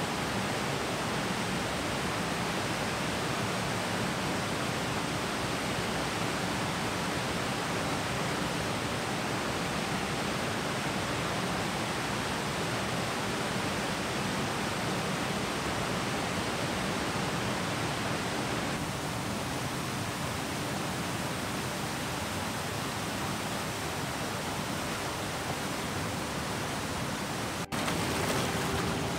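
Whitewater river rapids rushing steadily around boulders. Near the end the sound breaks for an instant and comes back slightly louder and closer, as water splashing over rock.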